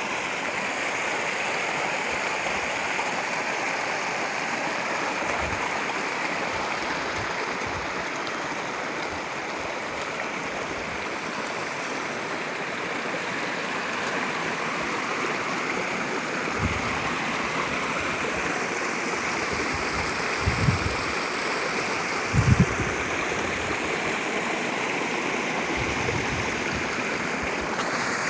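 Mountain spring water gushing out of the ground and running in a steady rush. A few dull low thumps come about three-quarters of the way through.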